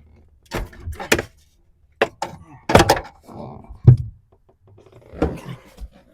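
Irregular knocks and clunks of tools against car parts during disassembly, about eight or nine separate impacts with short pauses between them, the loudest close to four seconds in.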